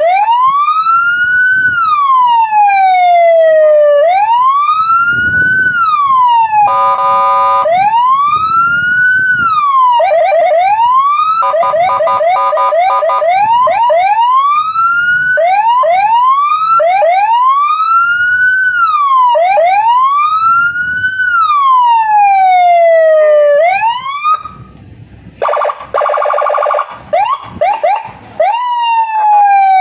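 Electronic police-escort (patwal) siren cycling through its tones: a rising-and-falling wail repeating about every two seconds, broken by a brief stepped tone and a stretch of fast chirping yelps. Near the end it changes to a rough, stuttering buzz before a last rising sweep.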